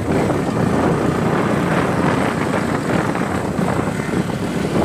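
Motorcycle engine running steadily at low speed while the bike rides over a rough, stony road, its choppy low engine note mixed with road noise.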